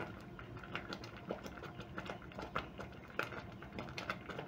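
Thick uji porridge simmering on medium-low heat, bubbles bursting at its surface in irregular pops, a few each second.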